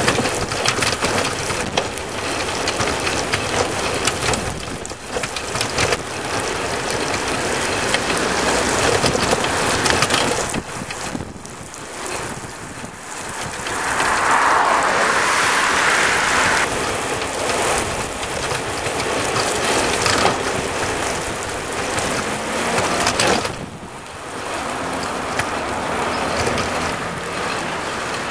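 Tyres rolling fast over wet asphalt, a steady hiss of road spray, with rattling from the camera trailer and bike frame. The hiss swells louder for a couple of seconds about halfway through.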